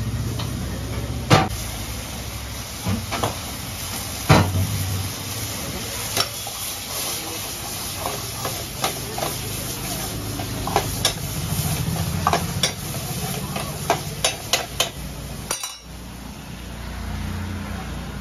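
Chicken chilli sizzling in a wok over a high gas flame while a metal ladle stirs it, knocking and scraping against the pan in irregular sharp clacks that come thicker in the second half, over a steady low hum.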